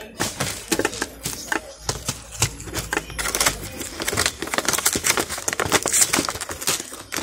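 Clear plastic gift bag crinkling and crackling as fingers handle it and pull its top open, a rapid run of small clicks and rustles.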